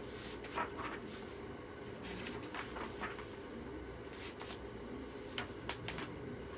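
Faint handling of a picture book: a few light taps and paper rustles as it is opened and its pages turned, over a low steady room hum.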